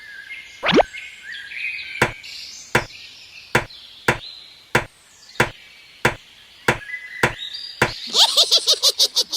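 A series of sharp, evenly spaced knocks, about three every two seconds, after a quick falling swoop near the start; a fast rattling run of clicks comes near the end.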